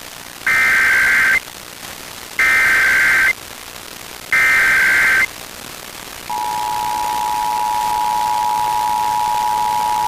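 Emergency Alert System SAME header: three bursts of high digital data tones, each about a second long and a second apart. About six seconds in, the steady two-tone EAS attention signal begins, marking the start of the alert.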